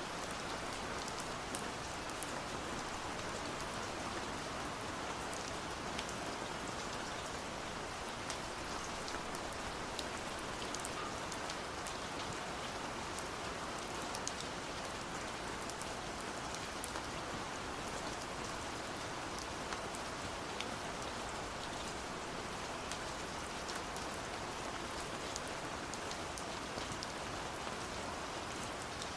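Gentle rain falling steadily: an even hiss with many small drop ticks scattered through it.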